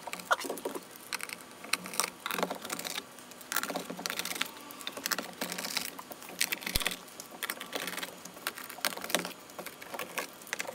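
A screwdriver backing the screws out of the plastic screen housing of a G1200 digital microscope, with light clicks and scratches coming irregularly, several a second.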